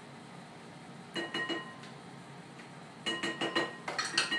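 A metal spoon clinking against a bowl: a quick run of taps about a second in and another about three seconds in, each ringing briefly, as paste is knocked off the spoon into the bowl.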